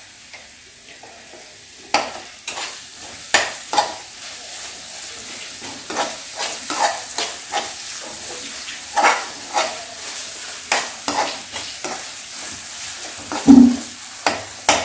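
A metal slotted spoon scraping and clinking against a metal kadai as a thick masala is stirred and fried, with a steady sizzle underneath. One louder knock comes near the end.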